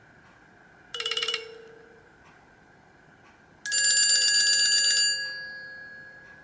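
Nokia C3-01 built-in phone tones playing: a short, rapidly trilling electronic chirp about a second in, then a louder trill of several bright tones at once from about three and a half seconds in, which stops after about a second and a half and fades out with a ringing tail.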